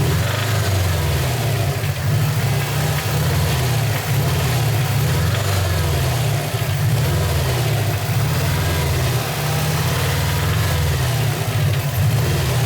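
Subaru Impreza WRX's turbocharged flat-four engine running steadily, with a rattle or knocking noise that the owner has been told is not normal.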